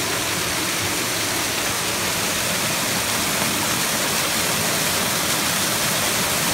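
Water of a waterfall cascade pouring and splashing over rock ledges close by: a steady, unbroken rush.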